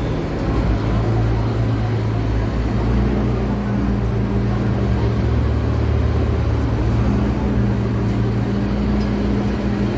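Engine drone and road noise heard from inside a moving vehicle: a steady low hum over a rushing hiss.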